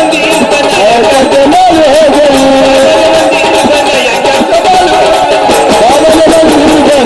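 Marathi Waghya folk devotional music: a voice sings an ornamented, wavering melody over a steady beat of small percussion.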